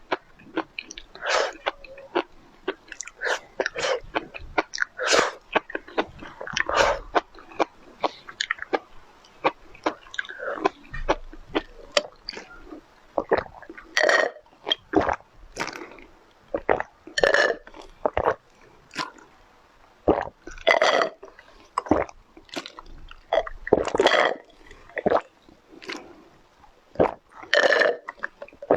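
Close-miked eating: chewing, biting and wet mouth noises in quick irregular bursts, with a few short voiced sounds among them.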